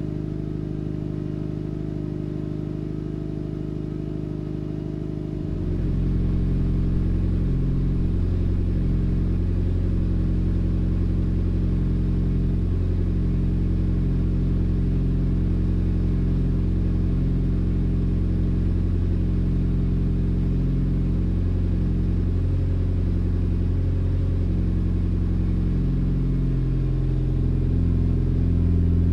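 Mitsubishi Lancer Evolution IX's turbocharged 4G63 four-cylinder idling steadily through an ETS catback exhaust on stock cat and downpipe, during its cold-start warm-up. About five seconds in, the tone of the idle changes and it gets a little louder, then holds steady.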